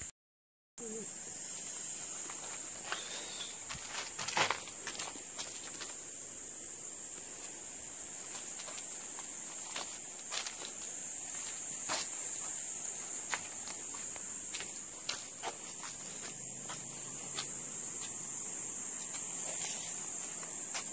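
Steady high-pitched insect chorus, a constant shrill buzz that holds level throughout, with scattered light clicks and taps. The sound drops out briefly at the very start.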